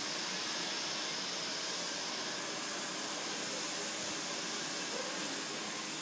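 Aerosol hairspray hissing steadily as it is sprayed onto a set beehive.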